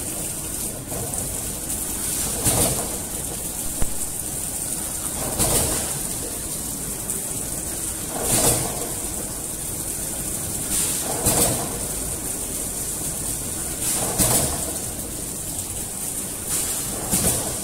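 Servo flow wrapping machine with box-motion sealing jaws running: a steady mechanical hum and hiss, with a swelling whoosh that comes back about every three seconds.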